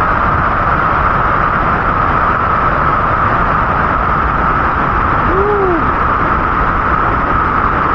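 Steady rush of a large waterfall, Lumangwe Falls on the Kalungwishi River, with a short rising-then-falling call about five and a half seconds in.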